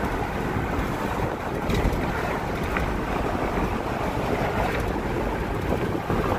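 Steady road and wind noise of a car driving, heard from inside the cabin, with a deep rumble and wind on the microphone.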